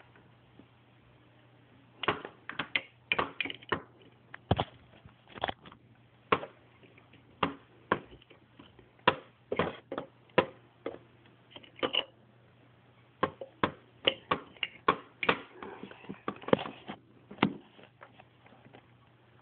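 Small hard plastic toy figures being handled, giving irregular light clicks and taps in clusters, starting about two seconds in.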